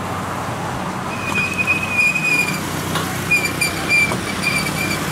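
Kubota DC-70 Plus combine harvester's diesel engine and threshing machinery running steadily as it cuts rice. A high whistling tone comes in about a second in and breaks into short repeated beeps near the end.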